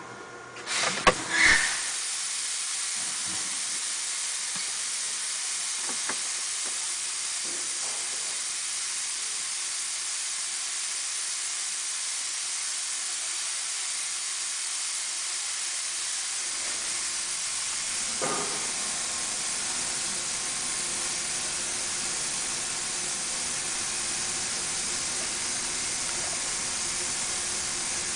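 Steady hiss of escaping compressed air that starts with a couple of clacks about a second in and then runs on unbroken, with a few faint knocks in the background.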